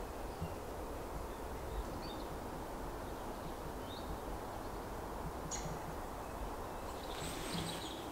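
Woodland ambience: a steady low rumble with a few faint, short bird chirps about two, four and five and a half seconds in.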